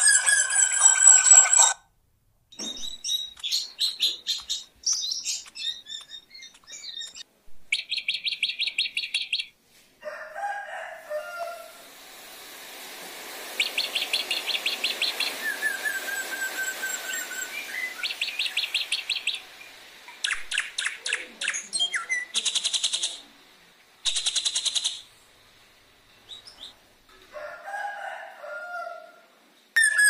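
A drongo singing a varied song in short phrases with gaps between them: whistled notes, fast rattling trills, and a falling whistle about halfway through.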